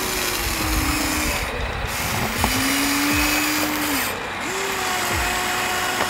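Electric motors of a Huina remote-control toy excavator whining as the boom, arm and bucket move. The whine comes in three runs over a steady buzz, each run rising quickly in pitch as it starts and dropping as it stops.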